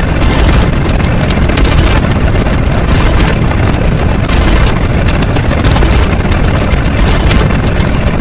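A loud, dense wall of layered sound effects: a heavy low rumble with a constant crackle of fine clicks over it.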